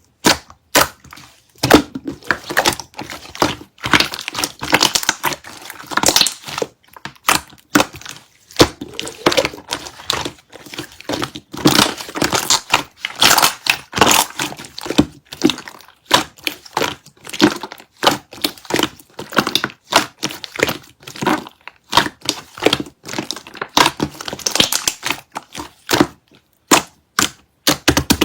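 Slime being kneaded and pressed by hand, giving a dense, irregular run of sticky clicks, pops and crackles.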